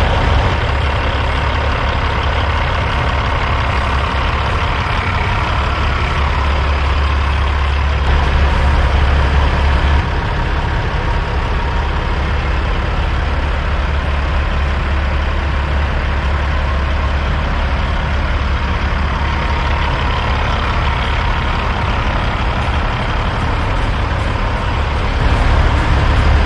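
Semi-truck diesel engines idling with a steady low rumble, which swells briefly about eight seconds in.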